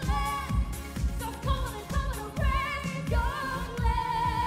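Female singer belting a pop song live over a band with a steady beat, ending on one long held high note about four seconds in.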